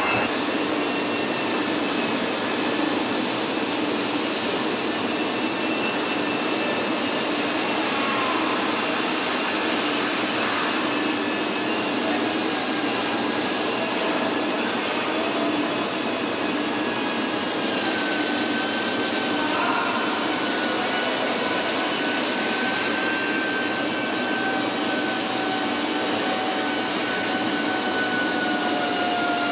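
Steady factory-floor machinery and ventilation noise: an even rush with a low hum and a few thin whining tones, two of which sink slightly in pitch in the second half.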